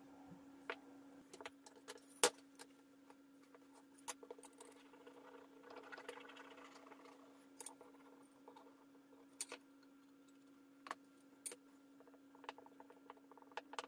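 Light clicks and taps of small wooden parts handled on a workbench, with a soft hiss of glue squeezed from a plastic bottle about six seconds in, and quick small ticks near the end as a brush works the glue. A faint steady hum runs underneath.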